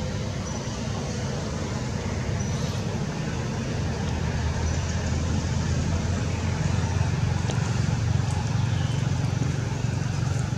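Steady low outdoor rumble, slightly louder around the middle, with a few faint, short high chirps now and then.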